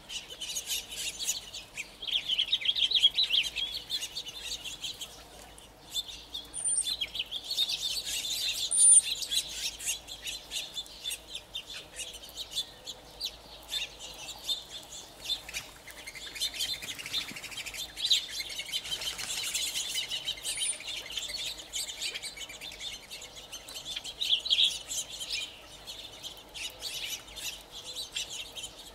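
A feeding flock of California quail chattering with rapid, soft chips and calls, and a few short, high squeaks from time to time.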